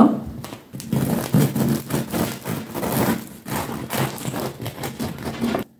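A knife sawing back and forth through the crisp crust of a freshly baked loaf of bread: a run of repeated rasping, crackling strokes that stops abruptly near the end.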